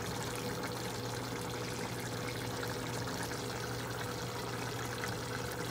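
A pot of chicken, potato and capsicum curry simmering on a gas stove: a steady hiss with faint crackling throughout, over a low steady hum.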